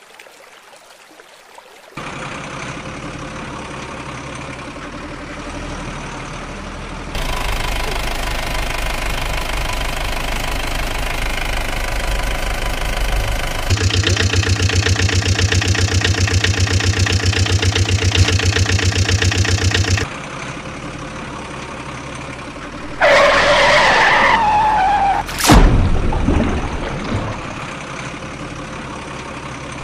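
Truck engine sound effects: an engine running steadily, stepping up in level about seven seconds in and again a few seconds later to a loud, fast-pulsing run, then dropping back to a quieter idle. Near the end a wavering squeal rises and falls, cut off by a sudden sweep.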